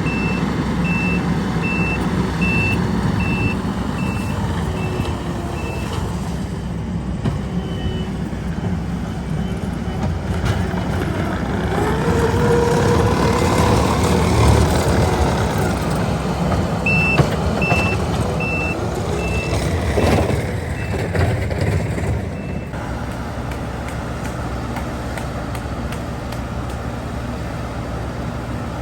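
Diesel construction machine running, with its backup alarm beeping steadily, about one beep every three quarters of a second, in two runs as it reverses. The engine gets louder in the middle.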